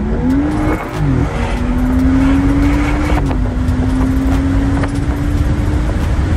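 BMW 3 Series engine heard from inside the cabin while accelerating through the gears. The engine note climbs and drops at an upshift about a second in, then climbs again and drops at another upshift about three seconds in. After that it rises slowly over a steady rumble of road noise.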